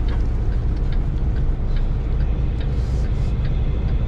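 Semi truck's engine and road noise heard from inside the cab as the truck swings wide through a turn: a steady low rumble, with a brief hiss about three seconds in.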